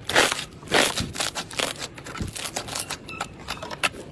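Fluffy foam slime squeezed and poked by hand, its trapped air bubbles popping and crackling in a quick run of sharp pops, the loudest in the first second.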